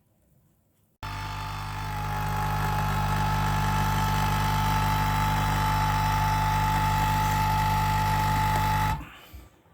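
Nescafé Dolce Gusto capsule coffee machine's pump starting suddenly about a second in and running with a steady, loud buzzing hum as it pushes hot water through a capsule. It shuts off abruptly near the end as the brew stops.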